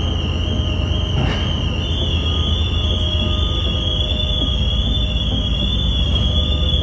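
A steady, high-pitched electronic warning tone sounds without a break over the low rumble of a ferry's enclosed car deck.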